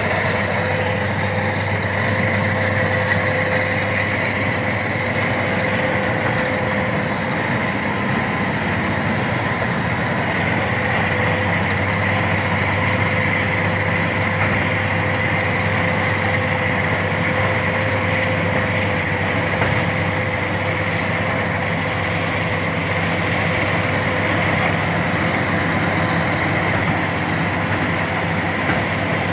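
Wheat combine harvester running steadily while cutting wheat: a continuous machine drone with steady whining tones over it.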